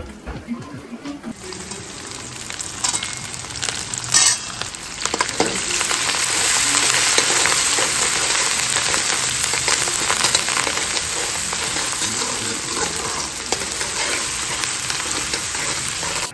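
Chopped onions and tomatoes sizzling in hot oil in a steel kadhai, with a steel spatula stirring and scraping against the pan in scattered clicks. The sizzle builds over the first few seconds and is loud and steady from about five seconds in.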